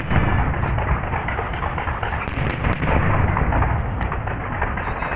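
Fireworks display: a dense barrage of aerial shell bursts that merge into a continuous low rumble, with crackling throughout.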